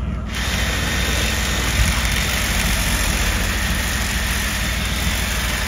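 A motor vehicle's engine idling steadily, with a deep rumble under an even hiss. It cuts in suddenly at the start and holds level without revving.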